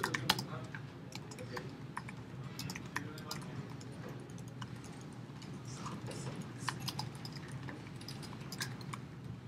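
Typing on a computer keyboard: irregular key clicks as a sentence is typed, over a steady low hum.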